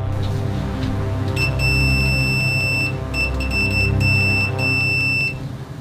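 Sanwa PM3 pocket multimeter's piezo buzzer sounding its continuity beep: one steady high-pitched tone lasting about four seconds, with a few short breaks, starting a little over a second in. Background music plays underneath.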